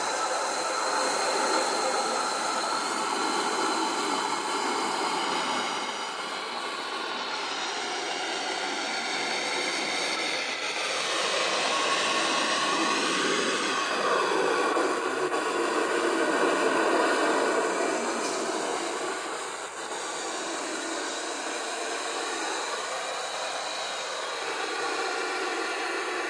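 A weak, distant FM station on 89.6 MHz through a small full-band radio receiver's speaker: mostly steady static hiss, with faint programme audio fading in and out beneath it. The signal is a sporadic-E skip from a station too weak to identify.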